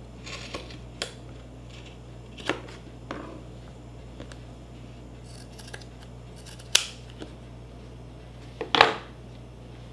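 Scissors snipping through ribbed knit sweater fabric in a handful of separate cuts, the two sharpest near the end.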